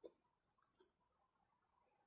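Near silence: room tone, with a faint click at the start and another a little under a second in.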